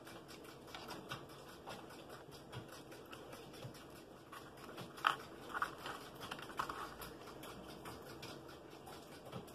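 Paper-plate pieces handled on a tabletop: quiet rustling, tapping and scraping of stiff paper, with a few louder rustles about five to seven seconds in.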